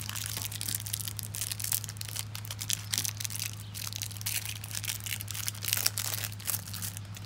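Crinkling and tearing of trading-card packaging as a Topps Series 2 hanger box is opened and handled, a dense run of small crackles.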